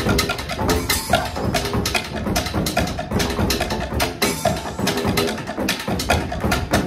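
Percussion duo drumming with sticks on blue plastic barrels, a plastic drum and a rig of plastic plumbing pipes: a fast, dense rhythm of hollow strikes, with some pitched notes among them.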